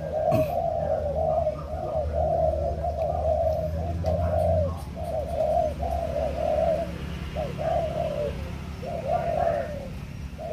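Spotted dove cooing: a near-continuous run of short, low coo notes with a few brief breaks, over a steady low hum.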